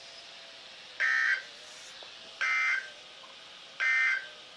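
Emergency Alert System end-of-message data bursts: three identical short, shrill digital bursts about 1.4 s apart, the SAME "NNNN" code that signals the alert message is over.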